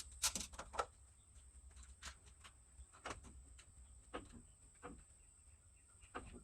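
Faint, scattered bird chirps, with two louder short clicks about half a second in.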